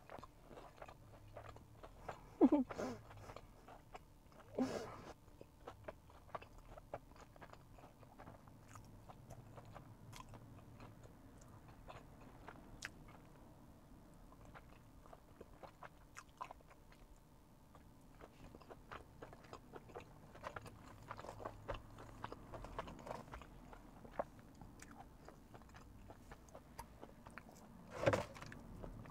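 Close-up mouth sounds of a Korean mozzarella corn dog being bitten and chewed: the fried batter crunching, with wet chewing of the cheese. There are a few louder bites or mouth sounds about two and a half and five seconds in, and again near the end.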